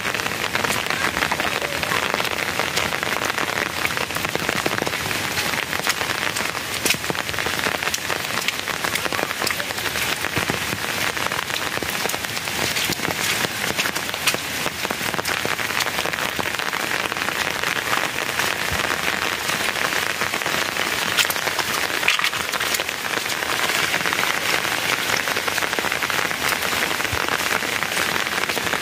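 Steady rain falling, with many separate drop strikes on a hard surface over an even rushing hiss.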